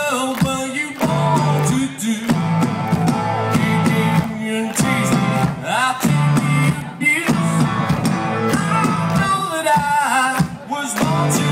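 Rock band playing live: a singer's voice over electric guitars and a drum kit, heard through the PA from within the audience.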